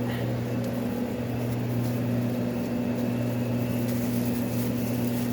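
Steady low machine hum with a constant low tone and no change in level, the running background of restaurant kitchen equipment.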